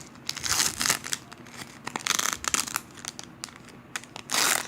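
Foil wrapper of a Pokémon booster pack crinkling as it is handled and torn open, in a few short bursts with the loudest near the end.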